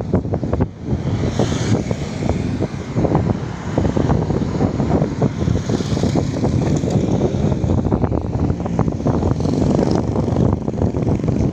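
Light road traffic with cars and motorcycles passing, heard under heavy wind buffeting on the phone's microphone. The noise is loud and continuous, with rumbling gusts throughout.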